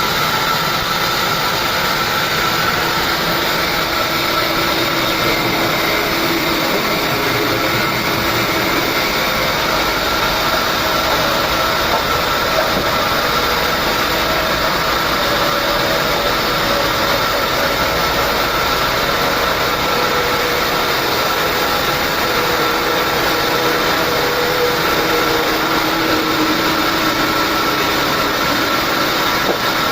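Large sawmill saw running steadily through a log, a continuous loud machine noise with a constant high whine.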